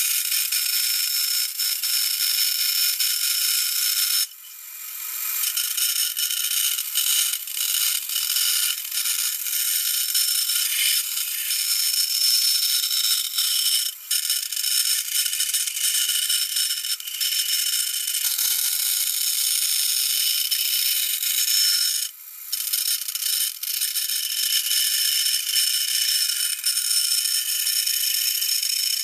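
Benchtop bandsaw running and cutting a thin wooden board along a curved line: a steady high whine with a continuous rasping cut. It dips briefly about four seconds in and again about twenty-two seconds in.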